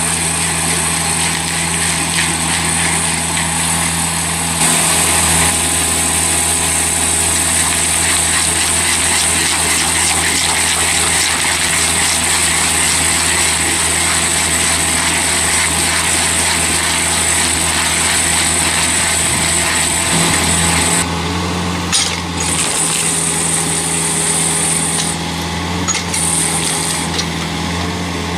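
Heavy forestry machine running steadily with a low engine drone and a high whine; the whine grows louder about five seconds in and drops out briefly a few times in the last seven seconds.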